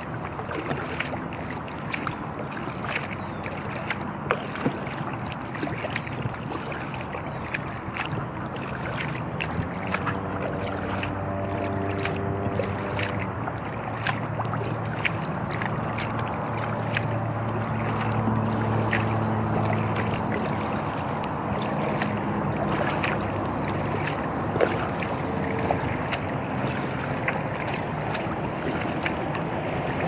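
Water slapping and splashing against an inflatable kayak, many small clicks of it, over the steady hum of highway traffic. About ten seconds in, a low engine drone builds up and holds for some fifteen seconds before fading.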